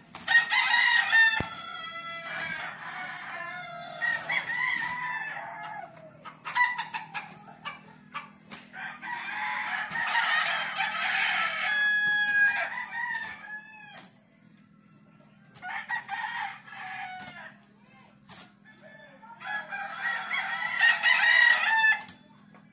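Roosters crowing, one long crow after another in about four spells, with some clucking between them.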